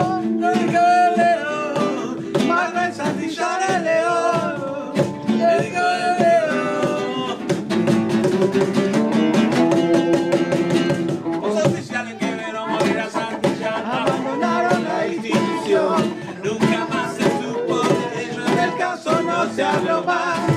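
Acoustic guitar strummed in a ska rhythm, with a cajón struck by hand for the beat and voices singing along.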